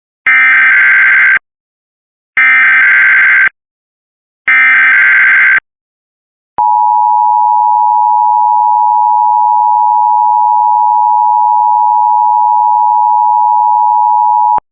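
Emergency Alert System alert tones: the SAME header, three buzzy data bursts of about a second each, a second apart, followed by the two-tone attention signal (853 and 960 Hz) held steady for about eight seconds before cutting off. This opens a required weekly test of the system.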